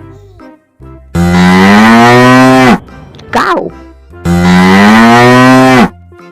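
A cow mooing twice: two long, loud moos of about a second and a half each, the pitch sinking slightly at the end of each, over soft children's background music.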